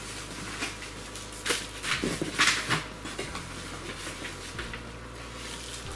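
Bubble wrap rustling and crinkling as it is handled, with a few sharper crackles in the middle.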